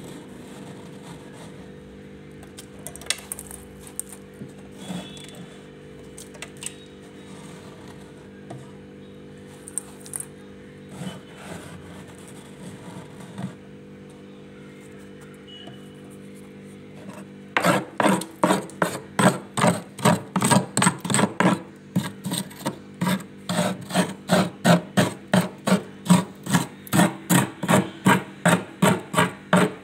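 Freezer frost being handled and then scraped with a spoon: a few scattered crunches and scrapes at first, then, a little past halfway, a fast, regular run of scraping strokes, about two or three a second. A steady low hum runs underneath.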